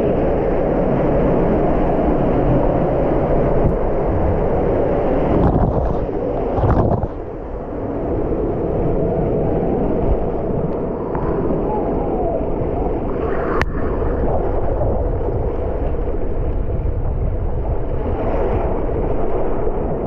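Water rushing and splashing down a water-slide flume around a camera riding in the current, a steady churning noise with water and wind buffeting the microphone. It dips briefly partway through.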